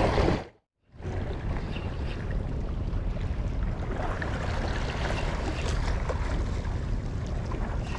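Steady wind noise on the microphone with sea washing against the shoreline rocks, after a brief dropout to silence just under a second in.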